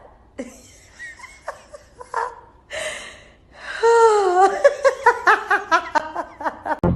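A person laughing: scattered breathy snickers first, then over the second half a run of quick rhythmic laughs, about four or five a second.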